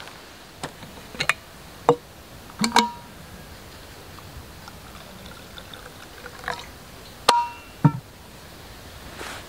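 Stainless-steel vacuum flask and its steel cup being handled: several metal clicks and clinks, then a faint trickle as a drink is poured into the cup. Near the end comes a sharp ringing clink and a thump as the flask is set down on a wooden table.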